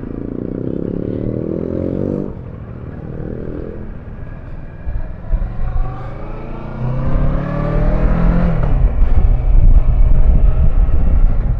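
Vehicle engine pulling steadily, then accelerating with a rising pitch for a few seconds. From about halfway through, loud wind rush on the microphone grows as speed builds.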